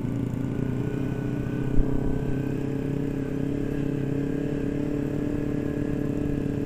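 Motorcycle engine running at a steady, nearly constant pitch while riding, with a brief low thump about two seconds in.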